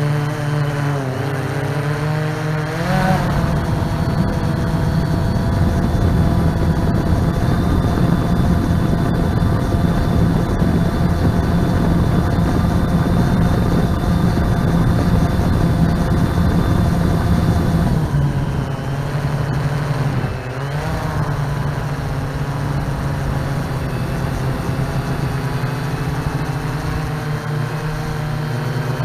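Multirotor drone's motors and propellers humming steadily, the pitch dipping and rising as the throttle changes. It runs louder and rougher for about fifteen seconds after a rise in pitch about three seconds in, then settles back.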